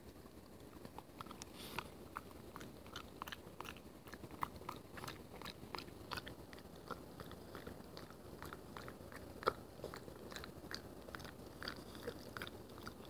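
A French bulldog chewing a pecan: a long run of small, faint, irregular crunches.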